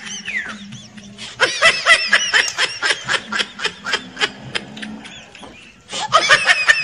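High-pitched laughter in quick runs of short pulses. It comes briefly at the start, in a long stretch from about a second and a half in, and again near the end.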